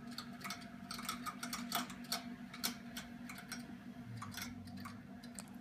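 Irregular light clicking of plastic beads hitting the propeller of an EcoTech Marine VorTech MP40 aquarium pump, over a faint steady low hum.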